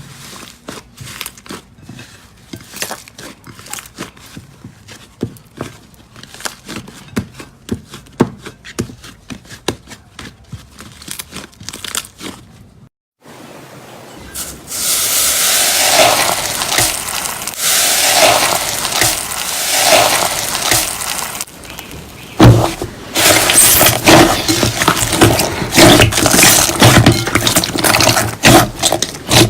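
Slime being squeezed and poked by hand, with many quick sticky clicks and pops. After a brief break about halfway through it gets louder, with squishing swells about every two seconds and then loud crackling pops.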